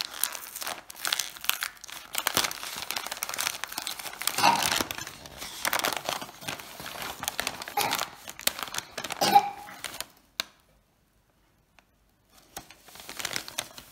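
Brown paper bag being crumpled and torn open by hand, with irregular crinkling and rustling. The sound drops out for about two seconds a little after ten seconds in, then the crinkling starts again.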